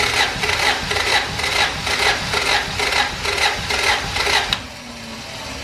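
Honda Civic engine being cranked over on the starter motor without firing, during a compression test with a gauge in one spark plug hole, pulsing about four times a second. The cranking stops abruptly about four and a half seconds in. The cylinder comes up to about 210 psi, which reads as healthy compression.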